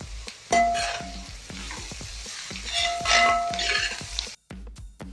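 Sliced onions sizzling in hot oil in a wide metal uruli while a spatula stirs them, scraping across the pan twice with a brief metallic ring. Near the end the frying cuts off and background music with a beat takes over.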